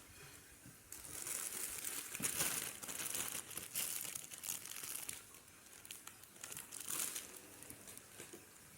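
Plastic bags or packaging being handled, crinkling and rustling in irregular bursts from about a second in, easing off near the end.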